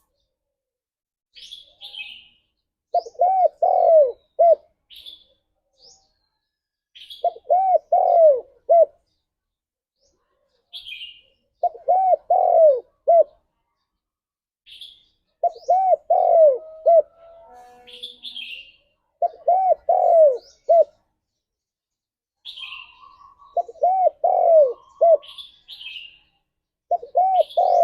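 Spotted dove cooing its three- to four-note phrase, repeated about every four seconds, with short high chirps between the phrases.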